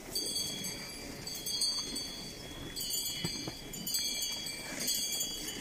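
Buddhist monks' ritual metal percussion: struck metal ringing on, with a fresh strike about once a second.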